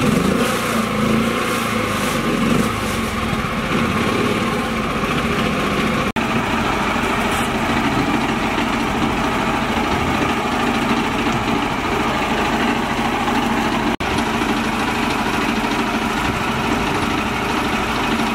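Small engine of a mini tractor running steadily, with two momentary dropouts where the sound cuts out.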